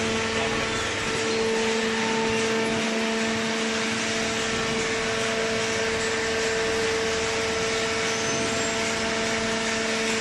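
Hydraulic baler's power unit running with a steady hum, holding a constant pitch throughout.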